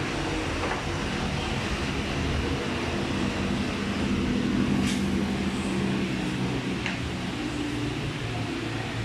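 Steady drone of nearby vehicle engines and traffic, its low hum shifting slowly in pitch, with one sharp click about five seconds in.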